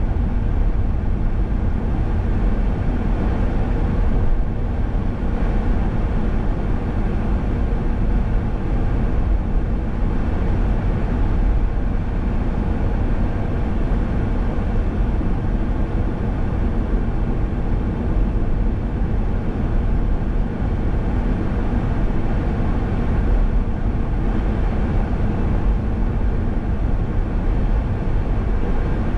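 Car driving at road speed: a steady low rumble of tyres and engine.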